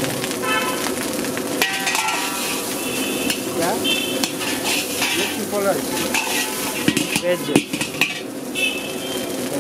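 Steel ladle scraping and turning rice around a large wok while it fries with a steady sizzle. A few sharp metal clanks of the ladle against the wok come about seven seconds in.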